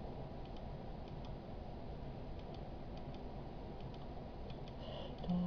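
Faint computer mouse clicks, a few single clicks spaced irregularly over a low steady background hiss.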